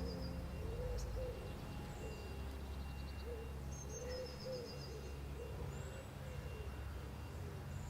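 A bird cooing in a repeated run of soft, low calls, with a few small birds chirping higher up and a steady low rumble underneath.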